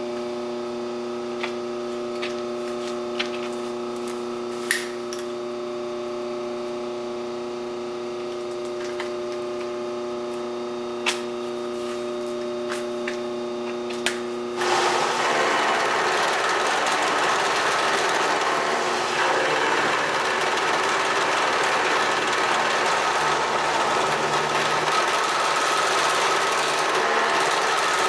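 Vertical milling machine's spindle running with a steady hum, with a few sharp clicks and clinks of the metal part and tools being handled. About halfway through this gives way abruptly to the louder, steady noise of the milling cutter cutting a chamfer into the metal block clamped at an angle in the vise.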